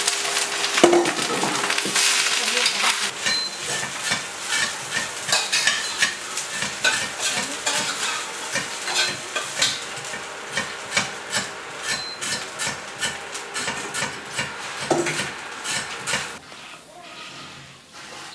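Food sizzling and crackling in a hot wok; the crackling stops suddenly near the end.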